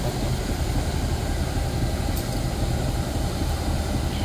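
Steady low rumble of a diesel-hauled passenger train, its engine running.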